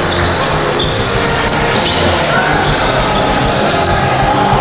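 Basketball game sounds in a gym: the ball bouncing on the hardwood floor and a few short squeaks, over steady spectator chatter echoing in the hall.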